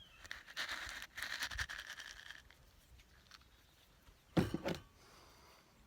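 A jar lid being screwed onto a small jar of mixed Tannerite, a short scratchy rasp of handling. About four and a half seconds in there is one brief, louder knock.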